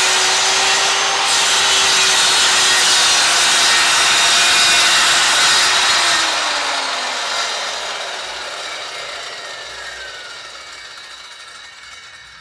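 Handheld electric circular saw switched on and cutting through a board at full speed. It is released about six seconds in and spins down, its motor pitch falling as the sound fades.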